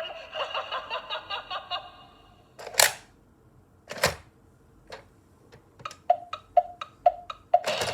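Gemmy animated monster alarm clock toy: a rapid stuttering sound tapers off over the first two seconds. Then come two loud sharp clicks and a few softer ones, and near the end a run of short clicking blips, about two a second.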